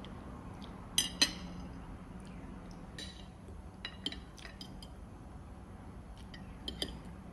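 Metal knife and fork clinking against a ceramic plate while cutting pancakes: two sharp clinks about a second in, then lighter scattered clinks and taps, with another pair near the end.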